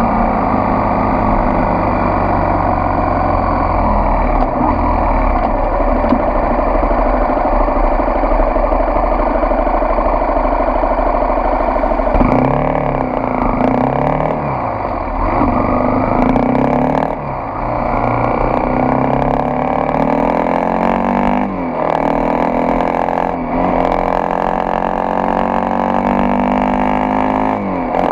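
Honda XRE 300 single-cylinder motorcycle engine running. Partway through it revs up and down a few times, then pulls away through the gears: the pitch climbs and drops suddenly at each of about three upshifts.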